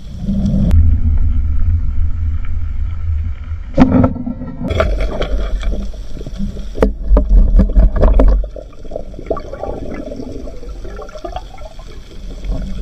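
Underwater sound from a spearfisher's dive: water rushing and gurgling against the camera, with a loud sharp crack about four seconds in that fits the speargun being fired at a fish. After that come more rushing water and clicks while the speared fish is reached, quieter in the last few seconds.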